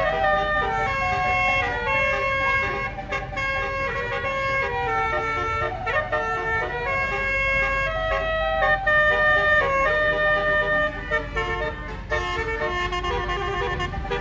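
Basuri telolet bus horn playing a melody: a run of steady horn notes that step up and down several times a second, over a constant low rumble.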